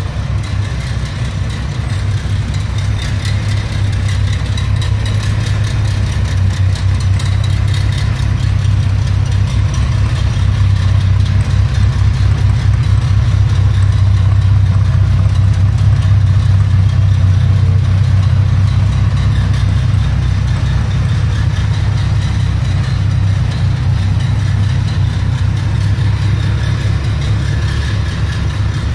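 Ferrari 308 GTSi's 2.9-litre V8 idling steadily. It grows somewhat louder about halfway through, then eases off.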